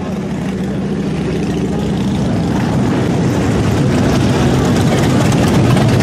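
Motorcycle engines idling and running along a street full of bikes, a steady low rumble that grows gradually louder.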